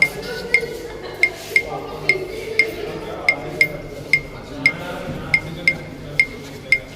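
Music with a bright clinking percussion beat, about two ringing strikes a second.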